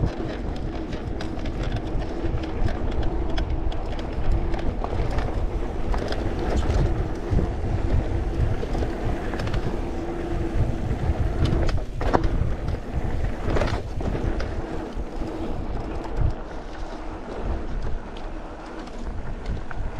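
Haibike Flyon electric mountain bike being ridden: tyre rumble and wind on the microphone under a steady hum, with scattered sharp knocks and rattles from the bike. The owner blames such clattering on dust around the motor screws.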